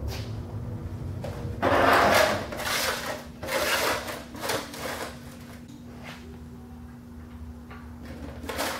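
A shallow metal oil drain pan set down and slid across the floor under a motorcycle in a series of scraping rubs, loudest about two seconds in and fading over the next few seconds. There is a short scrape or knock near the end.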